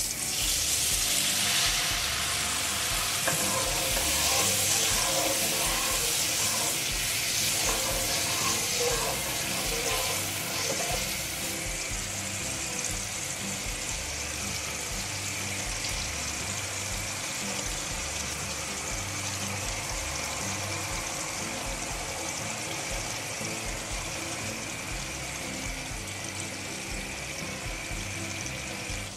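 Water poured into hot oil and spice masala in a pan on high heat hisses and sizzles loudly, easing after about twelve seconds to a steadier, quieter sizzle as it simmers. Background music plays underneath.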